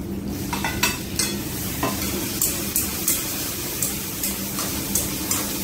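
Hot oil with garlic and chilli sizzling in a pan as sliced tomatoes are pushed in and stirred with chopsticks, with irregular clicks and scrapes of the chopsticks against the metal plate and pan.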